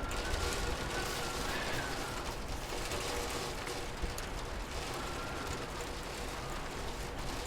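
Steady hiss of rain, with faint scattered clicks and a faint wavering high tone that comes and goes.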